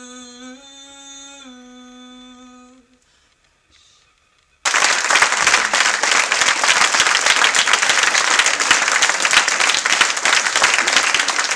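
A woman singing a gospel song a cappella holds a long final note that ends about three seconds in. After a moment of near quiet, an audience starts applauding loudly and steadily.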